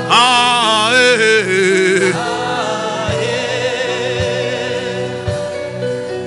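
Gospel music: a voice singing long, wavering notes over held chords. Low drum beats come about a second apart in the second half.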